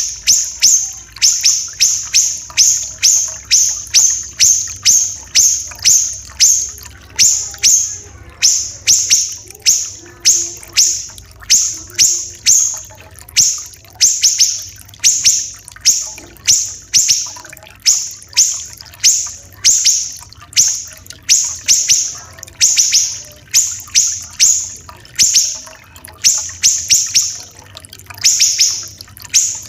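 Siri-siri kecil songbird singing a fast run of short, sharp, high notes, about two a second with a few brief pauses, over a faint trickle of running water.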